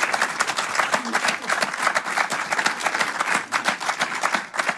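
Audience applauding, many hands clapping densely.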